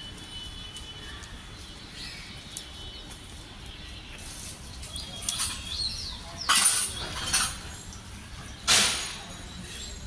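Hands patting a ball of mixed maize and bajra (pearl millet) dough between the palms to flatten it into a rotlo. Several soft slaps come mostly in the second half, the loudest near the end.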